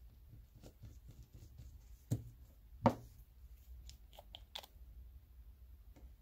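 Faint handling noises: a few light clicks and two sharper knocks, about two and three seconds in, over a low steady hum.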